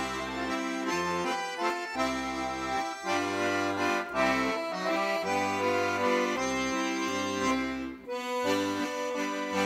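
Accordion music: a melody with chords over a regular, alternating bass, with a brief break about eight seconds in.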